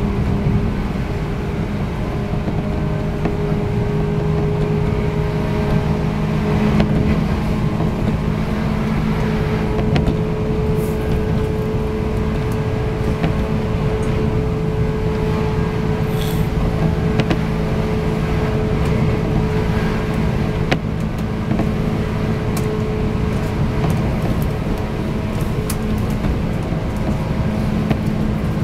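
JR 185 series electric train running at speed, heard from inside a car with MT54 traction motors: a steady motor and gear hum over rolling wheel-and-rail noise. The hum's pitch steps up slightly about nine seconds in, and a few sharp clicks from the track come through.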